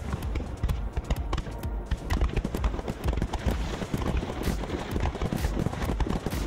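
Fireworks display going off in a dense barrage: rapid overlapping pops and crackles over low booms from many shells bursting at once.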